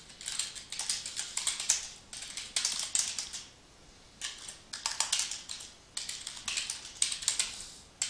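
Typing on a computer keyboard: quick runs of keystrokes broken by short pauses, a few times over.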